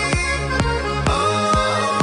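Electronic dance music with a steady kick-drum beat, about two beats a second, over sustained synth tones.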